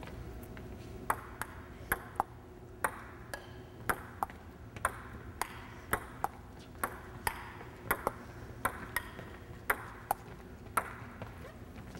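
Table tennis rally: the ball clicking off the paddles and bouncing on the table in a steady back-and-forth, about two clicks a second, starting about a second in.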